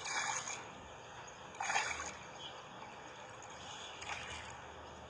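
Water splashing as a fish thrashes at the surface on a line: two short splashes about a second and a half apart, and a fainter one about four seconds in.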